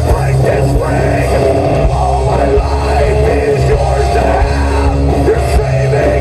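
Loud live hard rock band playing: distorted electric guitars, bass and drums, with a singer's voice over them.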